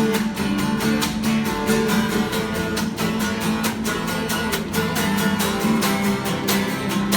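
Instrumental music led by strummed acoustic guitar, with a steady rhythm and sustained low notes underneath.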